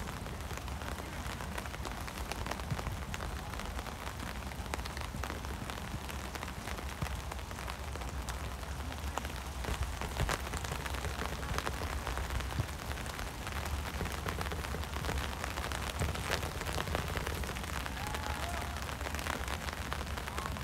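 Steady rain falling, with a dense scatter of small sharp drop ticks close by and a low rumble underneath.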